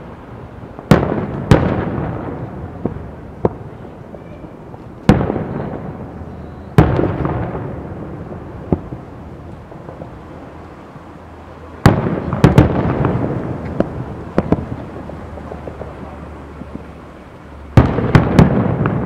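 Aerial firework shells bursting overhead: a series of loud sharp bangs, some in quick pairs and a cluster near the end, each trailing off in a long fading echo, with smaller pops in between.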